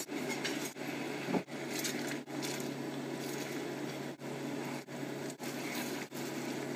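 Beef stock sauce boiling hard and reducing in a stainless steel frying pan, stirred and scraped across the pan with a silicone spatula, over a steady low hum.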